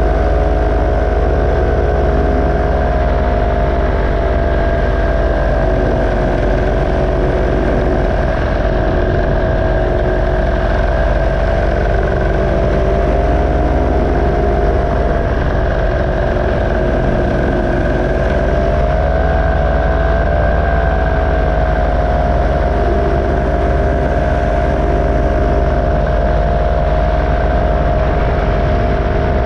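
Paramotor engine and propeller running steadily in flight, an even drone whose pitch wavers slightly up and down about two-thirds of the way through.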